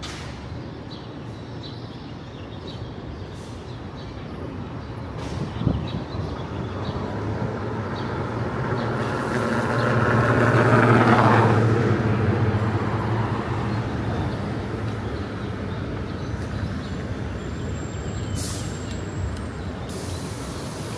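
A heavy motor vehicle passing close by in street traffic: its engine and tyre noise build up, are loudest about halfway through, then fade away, over a steady hum of city traffic.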